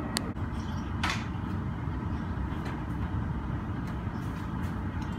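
Steady low rumble of airport apron noise, from aircraft and ground vehicles, with a sharp click just after the start and a short hissing swish about a second in.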